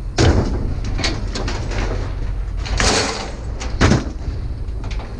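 A few knocks and bangs over a low steady rumble, the loudest a sharp bang about four seconds in.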